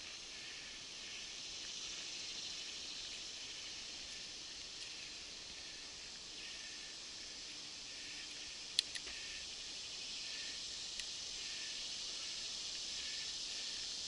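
Steady high buzzing chorus of insects in summer woodland, with one sharp click about nine seconds in.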